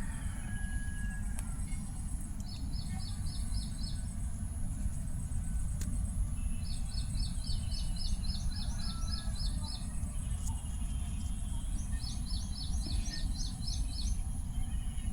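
Baby parrot chirping in three runs of quick, evenly repeated high chirps, about four a second, over a steady low rumble.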